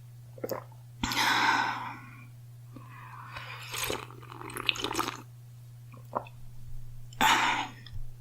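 A girl coughing: a loud cough about a second in and another near the end, with breathing and smaller throat noises between.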